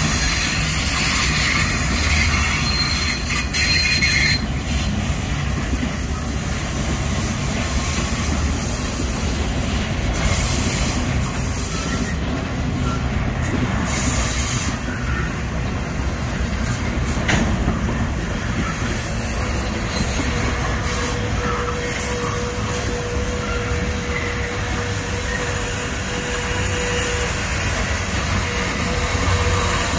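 SSR grain train's hopper wagons rolling past on a curve: a steady rumble of wheels on rail, with thin high-pitched squeals coming and going and a steady whine joining in about two-thirds of the way through.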